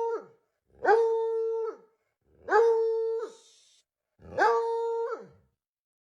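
A dog giving four short, steady-pitched howls with short pauses between them. Each call rises at the start and drops away at the end.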